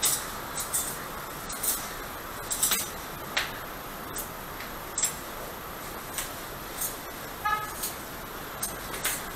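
Scattered light clicks and taps of small metal surgical instruments being handled over a paper drape, irregular, a dozen or so, with a brief high squeak about seven and a half seconds in.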